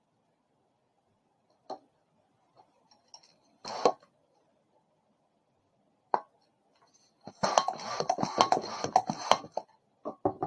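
A hand balloon pump inflating a long modelling balloon: about two seconds of rapid rushing-air pump strokes and rubber squeaks in the second half. Before it come a few light clicks and a short sharp snap from handling the balloon and pump.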